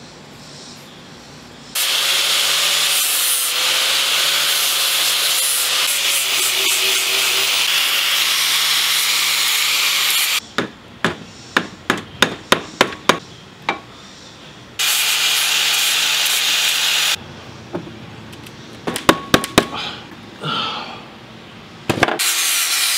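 Angle grinder with a sanding disc grinding a laminated zebrawood axe handle, running steadily in two long spells and starting again near the end. Between the spells a hand tool scrapes the wood in quick strokes, about three a second, and later in a few scattered strokes.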